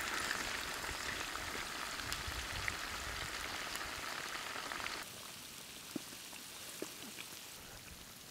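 Beef ribs frying in hot fat in a large pot, with a steady sizzling hiss. About five seconds in it drops suddenly to a softer sizzle with a few scattered crackles.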